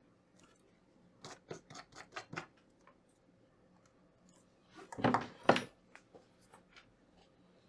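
Small metal tools scraping and clicking at a soldering bench: about six quick scratchy strokes, then a louder scrape about five seconds in.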